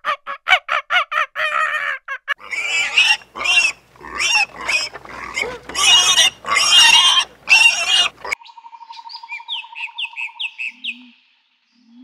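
A macaque gives a rapid run of short, high calls for about two seconds. Then piglets squeal and grunt in loud bursts until near the end, when fainter high chirps and a buzzing trill take over.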